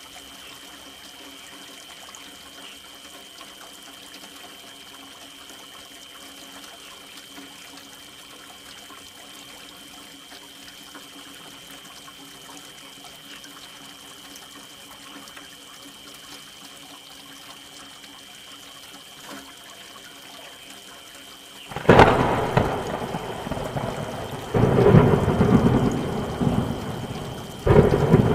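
Steady, fairly quiet rain, then a sudden loud thunderclap about three-quarters of the way in, followed by two more surges of rolling thunder near the end.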